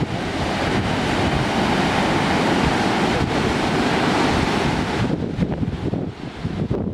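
Steady rush of wind on the microphone over ocean water; the higher hiss drops away about five seconds in, leaving a rougher low rush.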